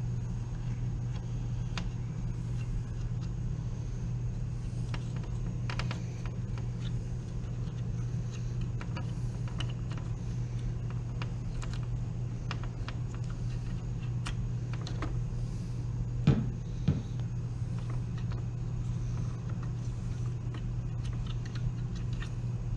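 Scattered small plastic clicks and taps as bulb sockets and connectors are handled and pushed into a car's dash switch housings, over a steady low hum, with one brief louder sound about sixteen seconds in.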